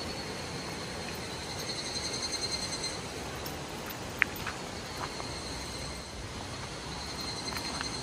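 Higurashi (evening cicadas) singing continuously, a high rippling call that grows a little louder between about one and a half and three seconds in and again near the end, over a steady background hiss. A single sharp click about four seconds in.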